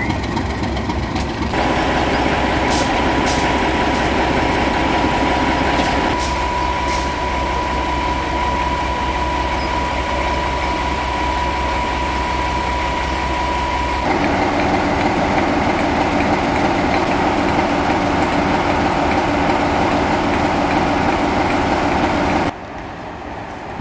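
Heritage railway train running steadily, its sound changing abruptly several times; a steady high tone runs through the first half and a few sharp clicks come early.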